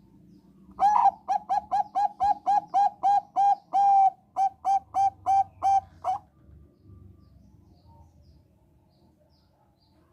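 Zebra dove of the Thai 'bangkok' type singing: a rapid run of about twenty short, clear cooing notes, roughly four a second, with one longer note midway, lasting about five seconds.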